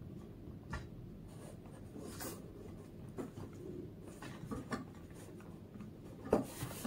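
Blunt scissors working at toy packaging: faint scattered snips, clicks and scratchy rubbing as the cut goes hard, with one sharper click near the end.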